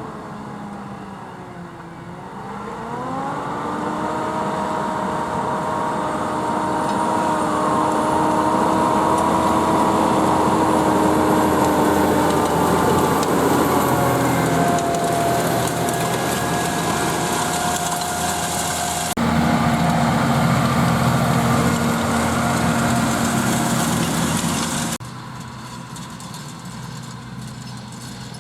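Case IH Puma 240 CVX tractor's six-cylinder diesel engine running under load while pulling a Horsch Pronto 6 DC seed drill. The engine note dips about two seconds in, then climbs and holds steady. The sound changes abruptly twice in the last third, first louder and then quieter.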